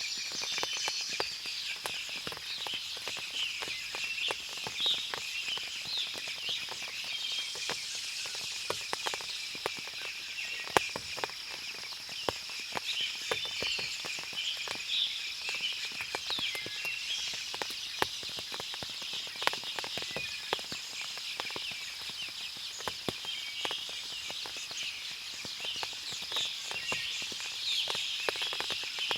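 Forest ambience after rain: many small birds chirping and calling at once, over a steady high insect drone. Frequent small sharp ticks are scattered throughout.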